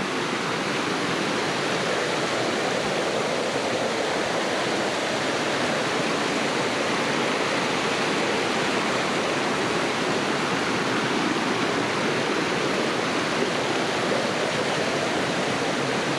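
Waterfall in heavy flood after a night of over 4 inches of rain: a steady, loud rush of falling water, raging.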